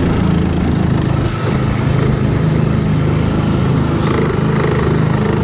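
Outboard boat motor running at a steady speed with an even drone, its lower unit freshly filled with gear oil.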